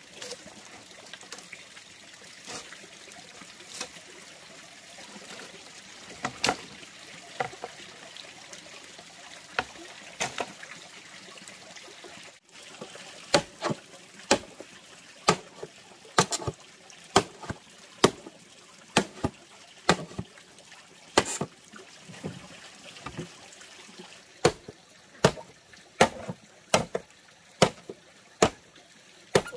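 A machete chopping into green bamboo poles: sharp knocks at uneven spacing, then a steady run of strokes about one a second in the second half.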